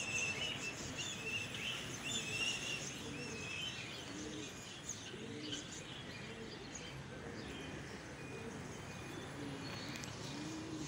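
Birds chirping high and quick for the first few seconds, with low domestic pigeon coos repeating every second or so throughout, over a steady outdoor background hum.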